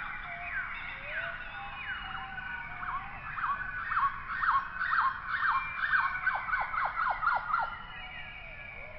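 A rapid series of short, high calls, each sliding downward in pitch, several overlapping; they grow louder and come in a quick run of about two a second through the middle.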